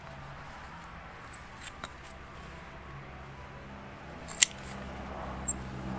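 Hand secateurs snipping through a rose cane near its base: one sharp snap about four seconds in, after a few faint clicks.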